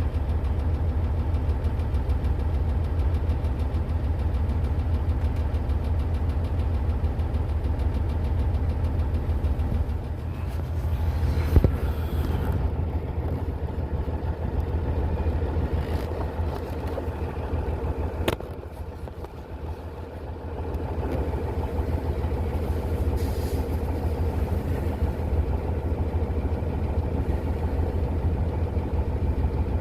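A heavy diesel farm-vehicle engine running steadily with a low hum. There are two sharp clicks, about a third of the way in and a little past halfway, and the engine sound dips briefly just after the second.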